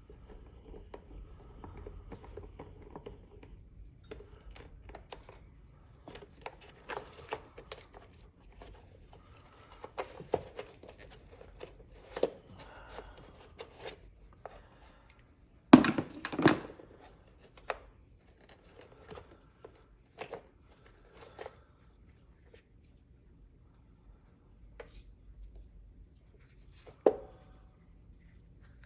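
Hand work on an ATV's starter solenoid: scattered light clicks, knocks and rustling as wires and nuts come off and parts are handled. A pair of sharper knocks a little past halfway and another near the end are the loudest.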